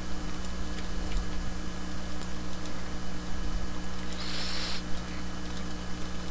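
Steady low electrical hum with a few faint clicks, and a brief hiss about four seconds in.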